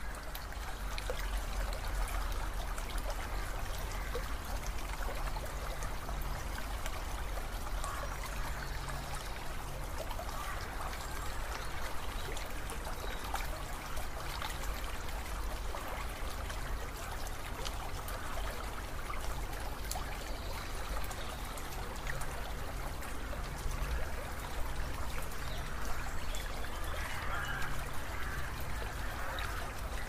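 River water running and trickling over rocks, a steady, even rush of flowing water with a low rumble underneath.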